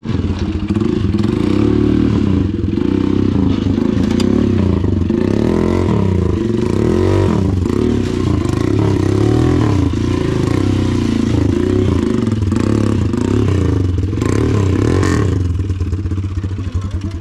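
Off-road motorcycle engine revving up and down over and over as the bike is worked over rocks in a stream bed, with a couple of sharp knocks, about four seconds in and again near fifteen seconds.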